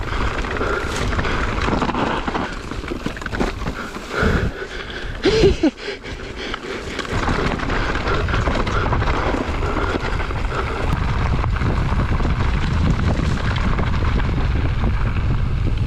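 Wind buffeting the microphone of a mountain bike's on-board camera, with the tyres rolling over a dirt trail. A brief louder sound with a short pitch bend comes about five seconds in.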